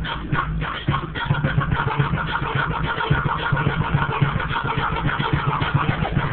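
New Orleans bounce music with a steady beat, played loud.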